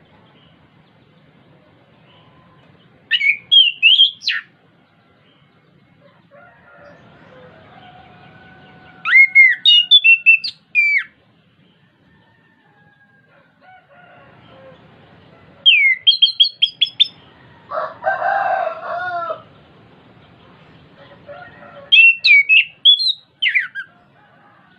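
Chestnut-capped thrush singing: four short phrases of rapid, high whistled notes spread a few seconds apart. A lower, drawn-out call sounds between the last two phrases.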